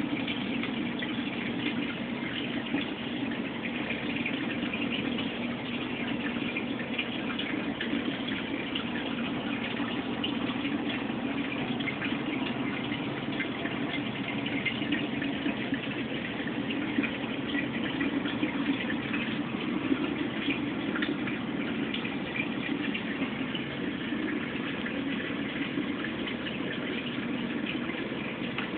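Steady rushing and trickling of water moving through a 180-gallon reef aquarium's circulation system, with a low rumble underneath.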